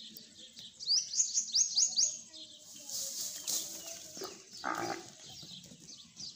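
A small bird chirping: a quick run of about six sharp, high chirps about a second in. Later comes a short, lower-pitched noise of uncertain source, over outdoor farmyard background.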